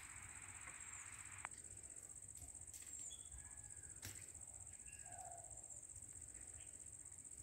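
Faint steady high-pitched insect drone, with a few brief bird chirps and a couple of small sharp clicks. A soft hiss stops about a second and a half in.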